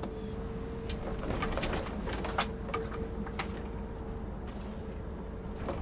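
Workhorse W20 motorhome rolling over a test course, heard close to the rear wheel and axle: a steady low rumble with a constant hum, and a few light knocks and rattles from the chassis, the loudest about halfway through.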